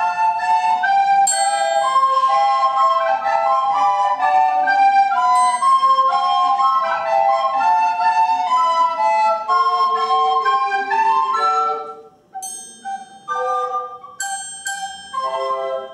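Recorder ensemble of soprano and larger recorders playing a piece in several parts. About twelve seconds in, the running notes give way to a few short held chords with pauses between them.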